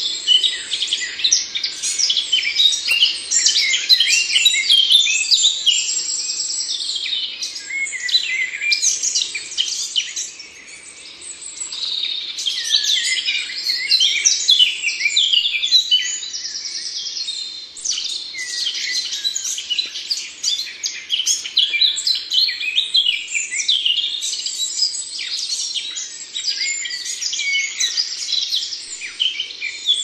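A dense chorus of many small songbirds chirping, trilling and singing over one another without a break, easing briefly about ten seconds in.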